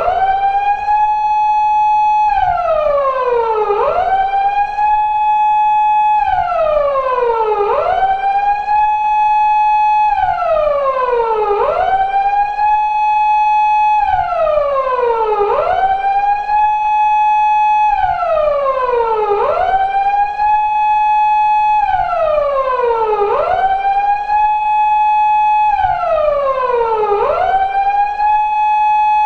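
Japanese police car wail siren of the type fitted to 170- and 180-series Toyota Crown patrol cars. It sweeps up quickly to a high tone, holds it for a moment, then slides slowly down, repeating about every four seconds.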